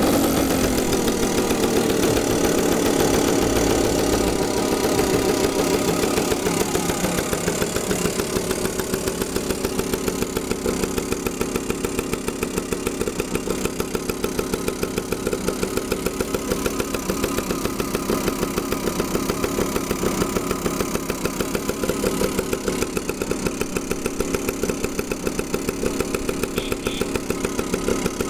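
Two-stroke single-cylinder engine of a restored Tomos Galeb (Puch SR) scooter idling with a rapid, even beat. It runs a little faster for the first several seconds, then settles into a steady idle.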